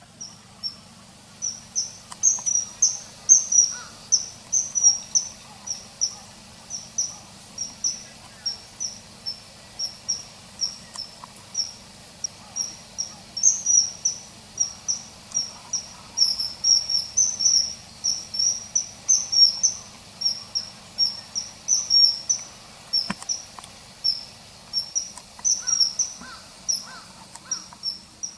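Common kingfisher calls: a long series of short, high-pitched piping notes, about two a second.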